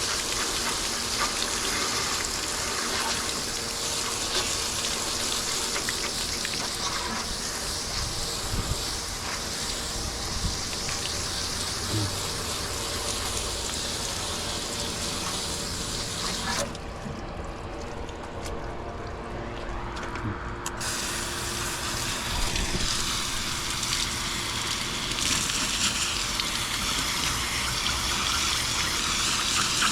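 Water spraying from a hose onto an air-conditioning unit, a steady rushing hiss. The spray drops away for about four seconds a little past the middle, then comes back.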